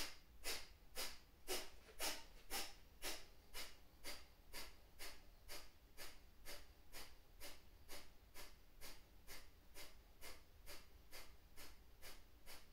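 Kapalabhati yoga breathing: short, forceful exhalations through the nose in a steady rhythm of about two a second.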